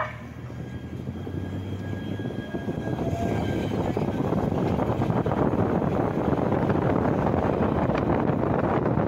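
Light rail train approaching and passing close by: the rumble of its wheels and running gear swells over the first few seconds and then holds loud, with a faint thin high whine at first.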